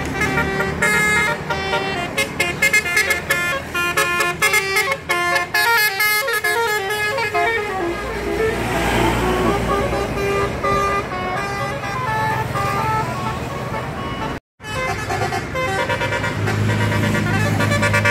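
Bus telolet horns, multi-tone musical horns playing quick runs of melody notes. A bus passes with an engine rumble and a rush of noise around the middle. The sound cuts out for a moment about fourteen seconds in, then the horn tunes go on.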